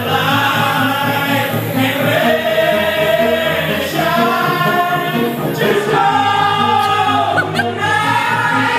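Music: voices singing together in harmony, with held, gliding notes over a repeating bass line.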